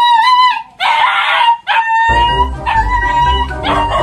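A street dog howling: a long wavering howl, a short bark about a second in, then another long held howl. About halfway through, background music with a heavy beat comes in under it.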